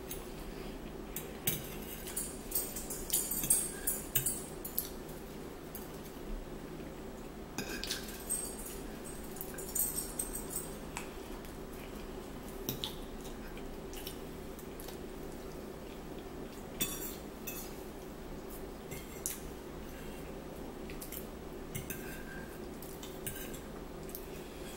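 Metal forks clinking and scraping against plates while eating, in irregular clusters of small clicks, over a steady low hum.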